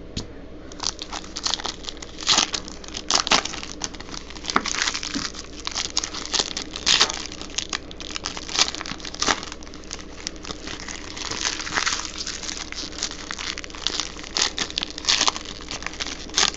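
Foil trading-card pack wrappers crinkling and crackling as they are handled and torn open, in irregular crackles.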